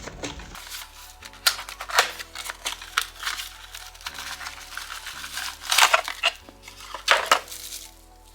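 Packaging crinkling and rustling, with light clicks of small items being handled, over soft background music. The loudest rustles come about six and seven seconds in.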